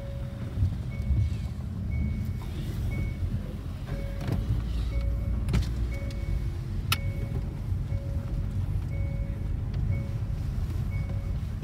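Car driving slowly, heard from inside the cabin: a steady low rumble of engine and tyres. A short high beep repeats roughly every half second to a second, and two sharp clicks come a little past halfway.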